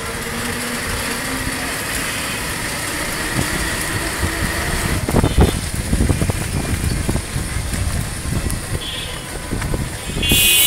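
Street traffic noise heard from a moving vehicle on a busy street of cycle rickshaws: a steady low rumble, with knocks and jolts about halfway through and brief high-pitched tones near the end.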